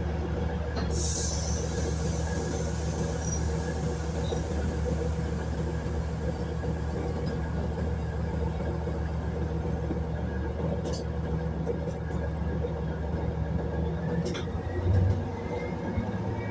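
Diesel railbus engine idling while standing at the platform, heard from inside the cabin as a steady low drone. There is a short hiss about a second in, and near the end a brief louder pulse, after which the engine note sits a little higher.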